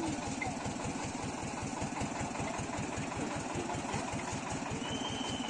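An engine idling with a steady, even low throb of about ten pulses a second. A brief faint high tone comes near the end.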